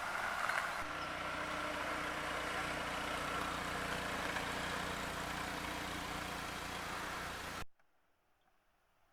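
A vehicle engine running steadily with a low hum, cutting off abruptly near the end.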